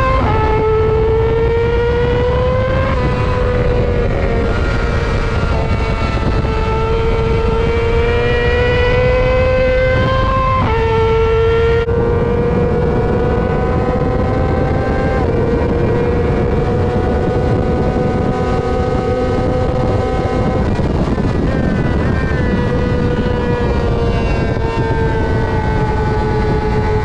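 2020 Yamaha R6's inline-four engine at racing revs, climbing in pitch and dropping sharply at upshifts about 3 and 11 seconds in, holding high down the straight, then easing off around two-thirds of the way through. Heavy wind rush at high speed lies under the engine.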